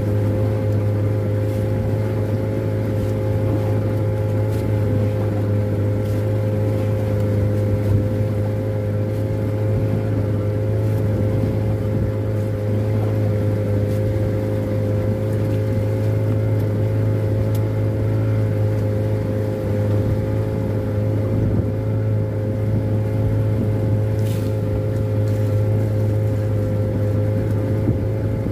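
Fishing boat's engine running at a steady speed, a constant low drone with a steady higher hum riding on it.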